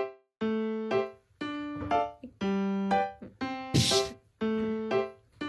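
Background music: a simple keyboard melody of held notes, with a brief burst of noise about four seconds in.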